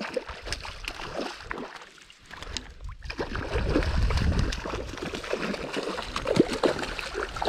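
Water sloshing, gurgling and splashing close to the microphone, with many small clicks and a low rumble through the middle.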